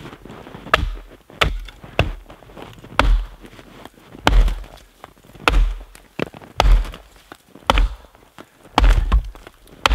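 Axe chopping into a birch log, a sharp thunk about once a second.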